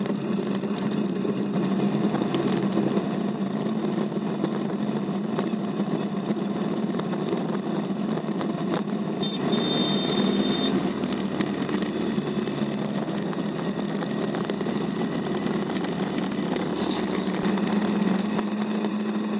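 Off-road buggy engine running steadily, heard from on board the buggy. The sound shifts slightly about nine seconds in and again near the end, where the footage is cut between clips.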